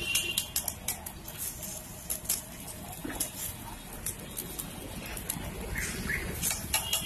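Metal spatula clicking and scraping against a large iron griddle (tawa) as egg is spread over a frying paratha for an egg roll, over a steady low hum.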